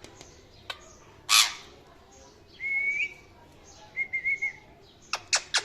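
Pet parrot calling: a harsh squawk, then a steady whistle that lifts in pitch at its end, a short warbling trill, and a quick run of sharp chirps near the end.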